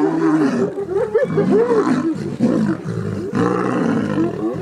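Lions snarling and growling at a crowd of spotted hyenas calling, many overlapping calls rising and falling in pitch.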